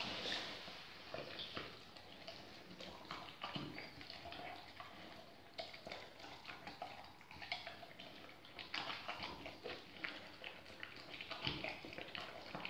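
Rottweiler eating raw meat and vegetables from a bowl: wet chewing, licking and smacking, with irregular short clicks.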